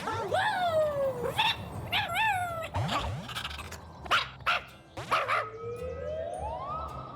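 Cartoon character yips and squeaks, several short dog-like calls that swoop up and down in pitch, with a few sharp clicks between them. Near the end comes a long rising whistle-like glide that holds on one note.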